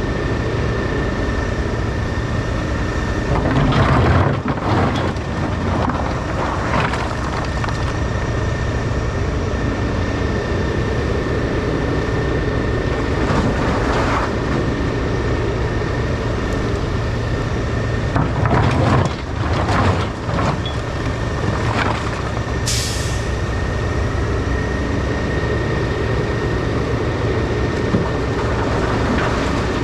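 Diesel engines of a Takeuchi excavator and a dump truck running, with a steady high whine, as the excavator loads riprap and mud into the truck's steel bed: rocks crash into the bed several times, loudest about 4 seconds in and again near 19 seconds. A brief sharp hiss comes about two-thirds of the way in.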